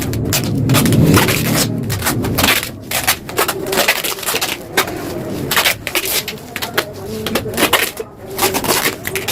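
A low engine rumble that fades out after about two and a half seconds, then irregular sharp knocks and clatter, several a second.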